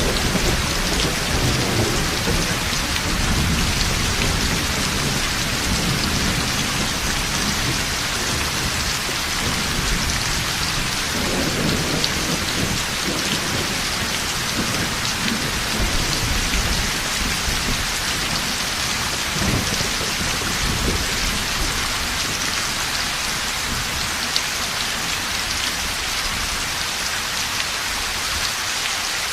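Heavy rain falling steadily with thunder rumbling low underneath, in several rolling swells that die away in the last third while the rain keeps on.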